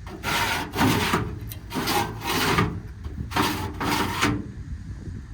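Six short rubbing scrapes in three pairs, each about half a second long.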